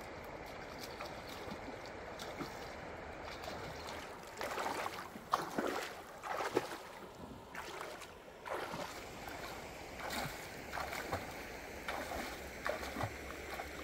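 Feet wading through a shallow, flowing river, each stride splashing, over the steady rush of the stream. The splashing steps begin about a third of the way in and go on irregularly.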